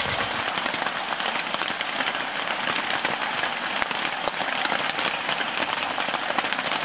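Rain pattering steadily on a tent's fabric, heard from inside the tent as a dense, even crackle of drops.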